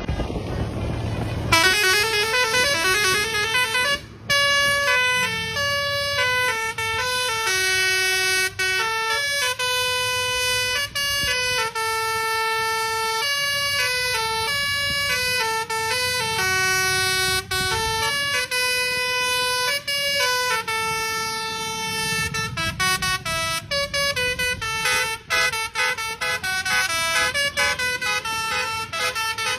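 Telolet musical air horn of a Basuri type on a bus, playing a tune of held notes that step up and down in pitch. It starts with a rising glide and turns to quick, short toots near the end.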